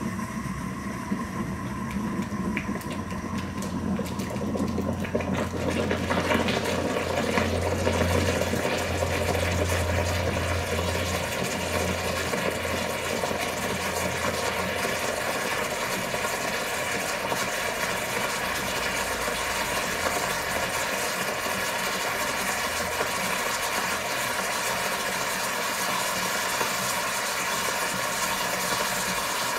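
Chocolate liquid boiling around a red-hot metal ball sunk in a glass jar: a steady seething, bubbling hiss with a low rumble that fades out about halfway through.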